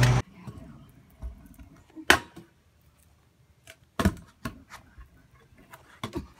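A loud hum cuts off right at the start. Then a stunt scooter knocks and clacks on a concrete walkway: about five sharp knocks a second or two apart, the loudest about two seconds in.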